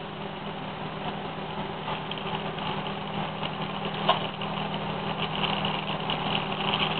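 Glassworking bench torch burning steadily: a constant rushing hiss with a steady low hum under it, and a brief click about four seconds in.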